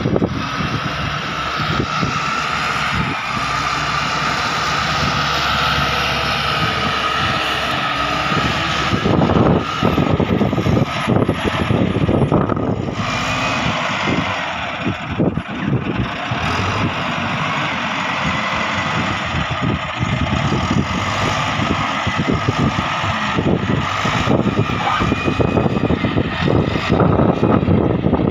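Diesel engine of a Caterpillar wheel loader running as it pushes and scoops earth. A high whine sits over the engine for the first several seconds, then irregular knocks and scrapes come through from about a third of the way in.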